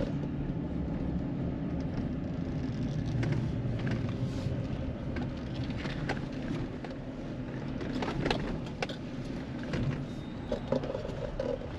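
Vehicle driving slowly: a steady low engine and road rumble with scattered light rattles and knocks.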